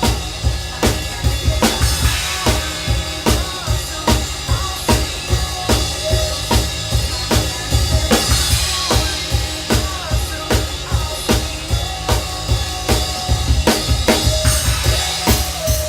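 Drum kit playing a steady beat along with the song's music: kick drum, snare and cymbals, over a pitched melody line. Cymbal crashes ring out about halfway through and again near the end.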